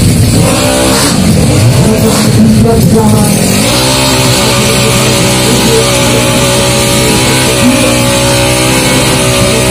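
Tuned 200cc automatic-scooter drag bike engine revving in rising and falling blips, then held at a steady high rev from about four seconds in, as it waits on the start line.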